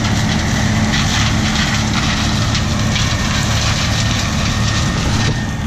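Turbocharged John Deere 7720 combine's diesel engine running steadily, a deep even drone with a steady hiss over it.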